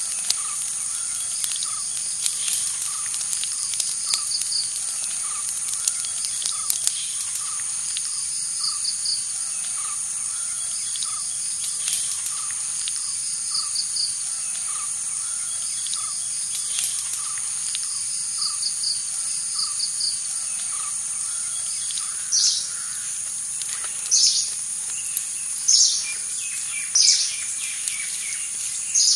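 Tropical forest ambience: a steady high-pitched insect drone with small chirps repeating in short runs. From about two-thirds of the way through, a bird calls over it in loud, separate notes roughly every second and a half.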